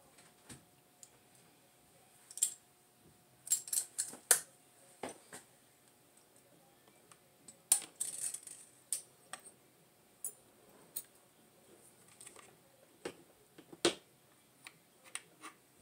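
Scattered light clicks and metallic clinks of small metal RC truck parts and a hand tool being handled, with short gaps between them.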